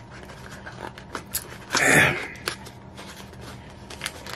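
A cardboard pie box and its plastic wrapper being handled and opened: scattered small clicks and crinkles, with one louder rustle about two seconds in.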